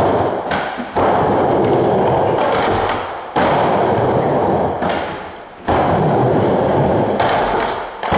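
Skateboard wheels rolling loudly across a wooden ramp. Each run starts with a sudden thud of the board hitting the ramp: about a second in, near three and a half seconds, and near six seconds. Between the thuds the rolling dies away.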